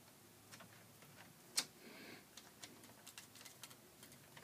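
Faint small clicks and ticks from hands fitting a wire into the terminal screw of a Square D QO GFI breaker, with one sharper click about a second and a half in.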